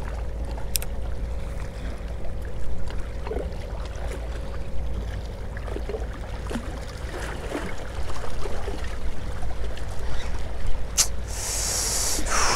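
Wind rumbling on the microphone over small waves lapping against jetty rocks. A sharp click comes near the end, then a brief hiss.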